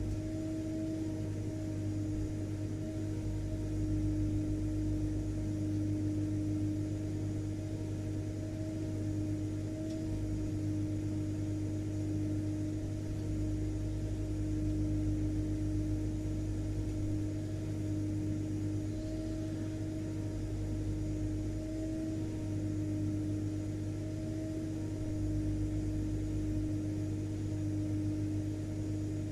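Vacuum cleaner running continuously, its motor giving a steady drone with a low hum and a tone of fixed pitch, unchanging throughout.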